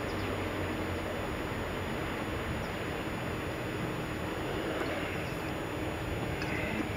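Steady outdoor background noise, an even hiss and low rumble with no distinct events standing out.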